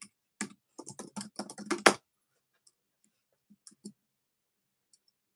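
Computer keyboard typing: a quick run of keystrokes for about two seconds, then a few scattered taps.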